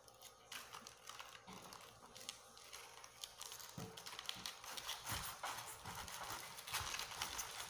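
Pineapple crown leaves rustling and crackling as fingers handle them, with a few soft low knocks of the fruit being moved.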